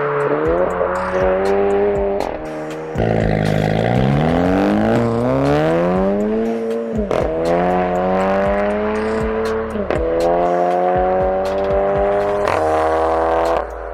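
Seat Leon Cupra ST's turbocharged 2.0 TSI four-cylinder running through an aftermarket exhaust under acceleration. The engine note climbs in pitch and drops sharply several times, as at gear changes.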